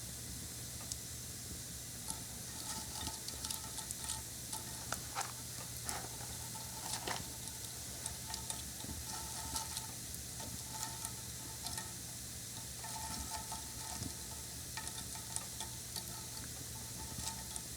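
Small fire crackling and hissing: a steady sizzle broken by irregular sharp pops, with a faint thin whistle coming and going now and then.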